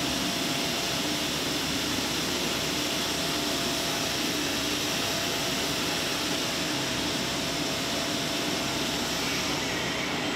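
Electric shop machinery running, a steady whir and hiss over a constant hum, with no hammer blows.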